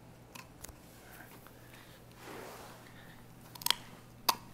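Rottweiler puppy gnawing a rawhide chew: a few faint clicks at first, then sharp crunches near the end, two close together and one more, over a faint low hum.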